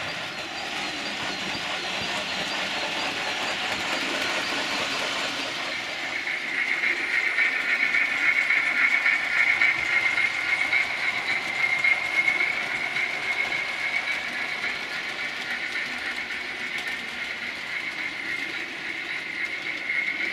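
Model trains running on the layout's track: a steady mechanical running noise of wheels and motors, with a high whine that grows louder about six and a half seconds in as locomotives pass close.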